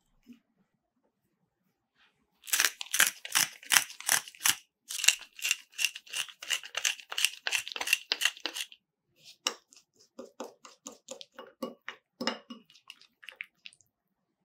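Pepper grinder grinding black peppercorns: a fast run of crunching strokes, about three a second, lasting some six seconds. Then a metal spoon stirring oil and spices in a glass bowl, with lighter clinks and scrapes.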